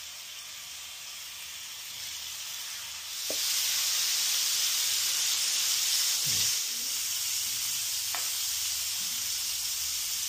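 Fish steaks frying in oil in a shallow nonstick pan: a steady sizzle that gets louder about three seconds in and stays up, with a couple of light taps of a metal spatula. The cook thinks the oil could have been a little hotter.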